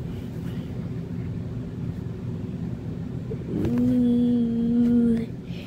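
A kitten purring close to the microphone: a steady, rough low rumble. About three and a half seconds in, a voice-like note is held at one steady pitch for about a second and a half, louder than the purring.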